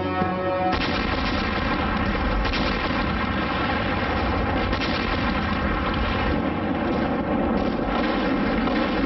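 Soviet artillery barrage: massed guns firing in a dense, continuous rumble of shots. It sets in under a second in as the music drops away.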